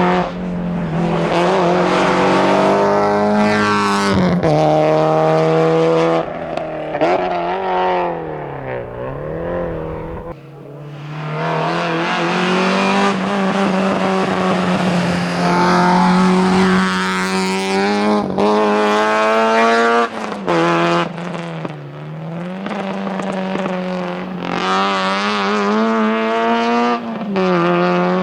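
Rally car engine running hard at high revs, climbing through the gears and dipping sharply several times as the driver lifts and shifts for corners.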